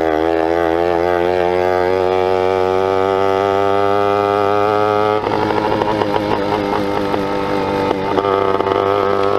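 80cc two-stroke motorized-bicycle engine running under way through a snapped exhaust. Its note climbs slowly, then about five seconds in it changes abruptly and turns rougher.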